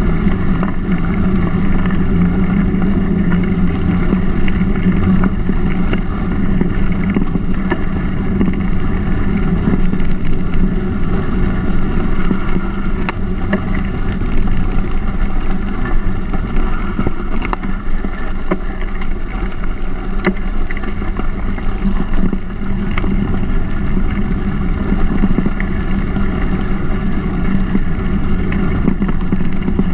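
Mountain bike rolling along a gravel towpath, recorded by a GoPro mounted on the bike: a steady rumble of tyres and vibration, with wind on the microphone and small scattered clicks and rattles.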